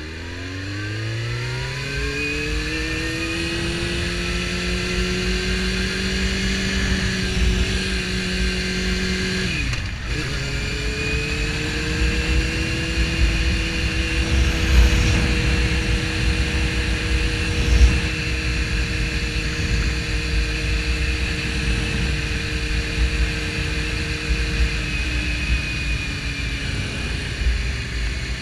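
Suzuki GSX-R750's inline-four engine accelerating from low speed, with a gear change about ten seconds in, then pulling at steady revs until the revs drop off near the end. Wind buffets the rider-mounted camera microphone throughout.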